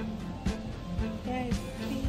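Background pop music with a steady beat, about two beats a second, and a melodic line over it.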